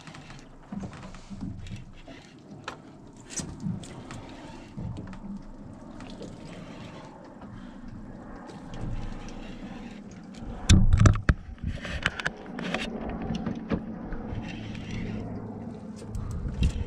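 Sounds aboard a small boat: a steady low hum under mixed noise, with scattered clicks and a few loud knocks and clatter about eleven seconds in.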